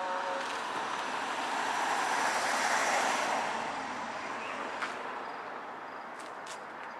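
A road vehicle passes by; its noise swells to a peak about two to three seconds in, then fades away.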